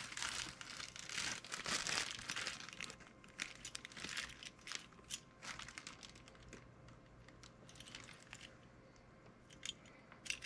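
Clear plastic bag crinkling as a die-cast toy truck cab is pulled out of it. The crinkling is busy for the first three seconds, then thins to scattered crackles, with a few light clicks near the end.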